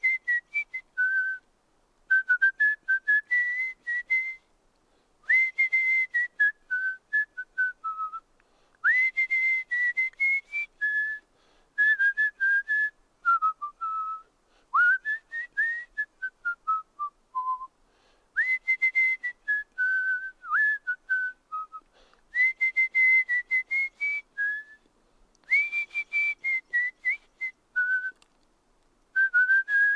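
A person whistling through the lips: short phrases of clear notes that slide up and down, each phrase a few seconds long, with brief pauses between them.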